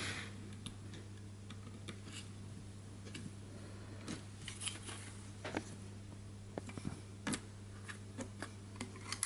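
Scattered small clicks and light handling noises as an old Agifold folding camera and a cable release are worked by hand, over a steady low hum.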